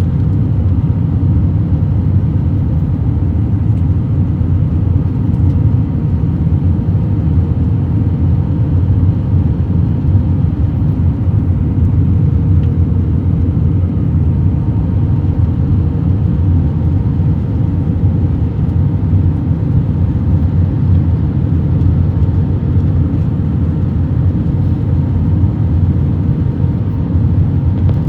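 Steady low rumble of cabin noise inside an Airbus A321-200, with faint steady tones above it and no distinct events.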